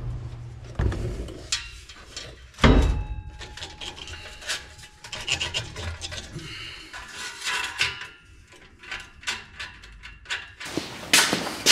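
Metal exhaust tail-pipe section of a Ford F-350 being worked into place under the truck by hand: irregular scraping and rubbing of the pipe against the frame and hangers, with knocks, the loudest a little under three seconds in and another near the end.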